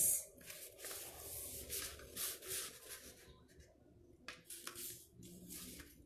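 A sheet of sketchbook paper being folded in half and creased by hand: a run of dry rustling strokes for about three seconds, then a couple of shorter rustles.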